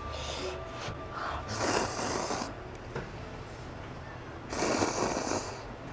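A person slurping instant ramyeon noodles off chopsticks, two long noisy slurps about three seconds apart.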